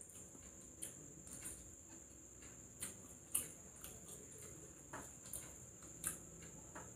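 Faint, scattered light clicks of a spoon tapping and scraping on a metal plate while rice is scooped up and eaten.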